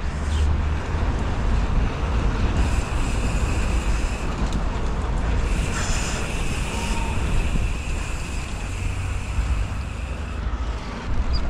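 Wind buffeting an action camera's microphone on a moving bicycle: a heavy low rumble with a hiss above it.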